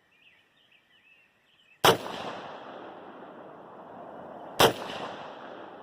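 Two rifle shots from a DB-15 AR-15 firing 5.56 green-tip ammunition during barrel break-in, a little under three seconds apart, each trailing off in a long rolling echo. Faint birdsong is heard before the first shot.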